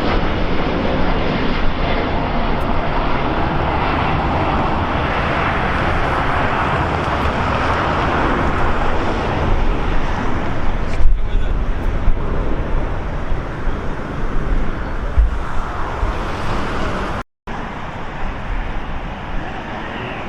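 Loud, steady vehicle noise outdoors, with wind rumbling on the microphone. It swells to its loudest about ten seconds in, then eases off, and the sound cuts out for a moment near the end.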